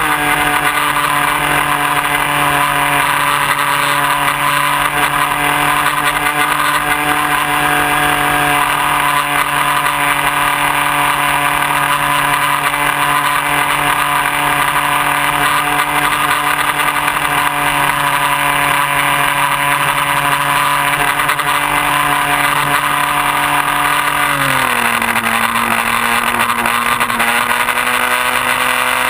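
Electric motor and propeller of a Multiplex Xeno RC plane, heard from a camera on the plane, running steadily under power with wind rush over the microphone. About 24 seconds in, the pitch drops as the throttle is eased back, then rises a little.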